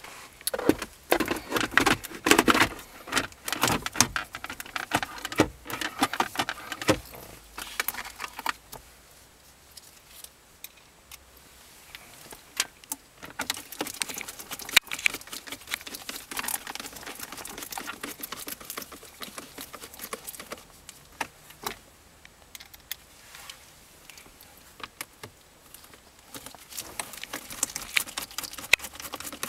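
Plastic center-console trim of a 2003–2007 Honda Accord being handled and worked with a screwdriver around the storage pocket: irregular clicks, rattles and scraping. Dense for the first eight seconds or so, then sparser clicks.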